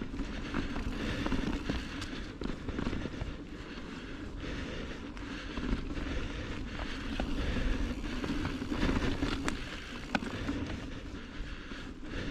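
Mountain bike riding noise picked up by an action camera: tyres rolling over the dirt and rock trail with wind buffeting the microphone, a steady uneven rumble with scattered sharp clicks and rattles from the bike.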